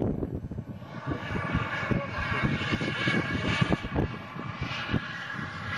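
Small turbine engine of a radio-controlled model F-15 jet flying overhead, a steady rushing noise that dips about a second in and builds again toward the end, over a low rumble.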